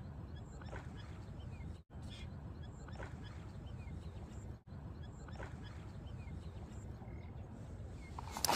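Open-field ambience: a steady low rumble with faint, short animal calls scattered through it, the sound cutting out briefly twice. Near the end, a loud splash of water.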